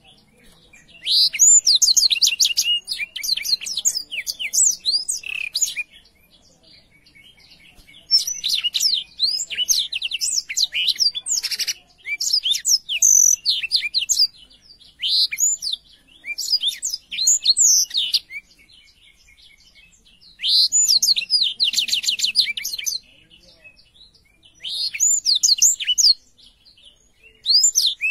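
Blackthroat (black-throated canary) singing in about seven phrases of fast, high twittering trills and chirps, each a few seconds long, with short pauses between.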